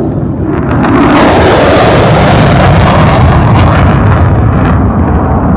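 Fighter jet passing low overhead: a loud jet rush that swells about a second in, holds for a few seconds with sharp crackles through the loudest part, then begins to ease off near the end.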